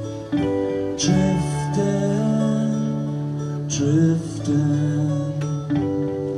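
Live guitar trio: a strummed acoustic guitar with electric guitars, chords ringing and changing every second or two, with strong strums about a second in and again near four seconds.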